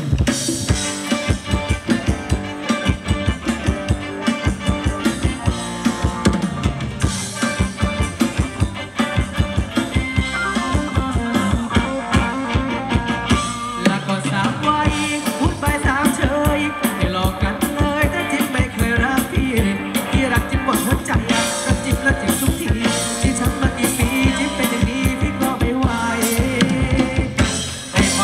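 Live band playing upbeat Thai ramwong dance music, a drum kit keeping a fast, steady beat under melody lines.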